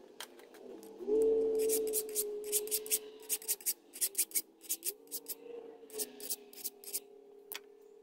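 Irregular metallic clicks and short scrapes of a flat file and a small cast flywheel being handled and worked on a bench, over a steady hum that steps up in pitch about a second in and again near the middle.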